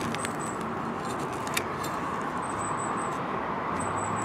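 Hand trowel digging and scraping in loose soil and rubble, with one sharp click about a second and a half in, over a steady background hiss.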